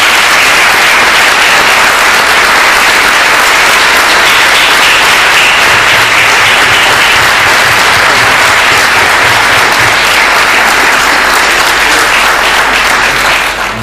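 A roomful of people applauding, loud and steady, easing off near the end.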